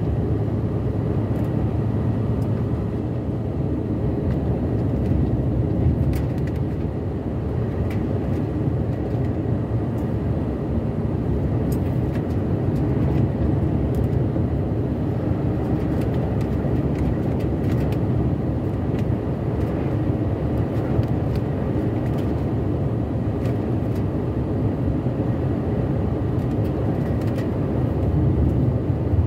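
Truck cruising along an open road: a steady low rumble of engine and tyre noise heard from inside the cab.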